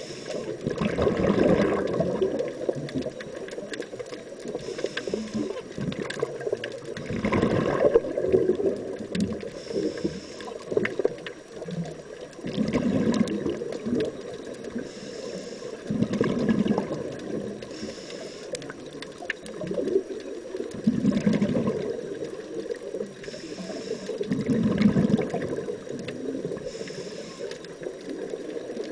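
Scuba diver breathing through a regulator, heard underwater: a faint hiss at each inhalation, then a loud gurgling burst of exhaled bubbles, repeating about every four to six seconds.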